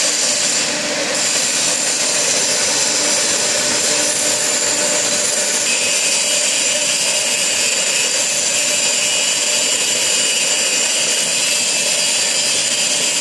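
Stainless steel colloid mill driven by an electric motor, running steadily under load while grinding red peppers into paste, with a constant machine noise and high whine. A further high tone joins about six seconds in.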